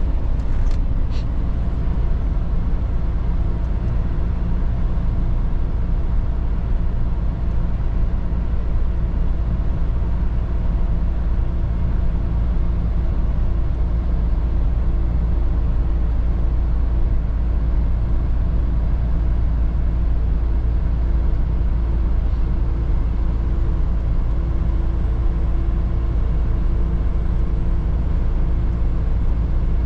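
Mercedes-Benz Atego truck's diesel engine and road noise heard inside the cab, running steadily at cruising speed. A couple of short clicks sound about a second in.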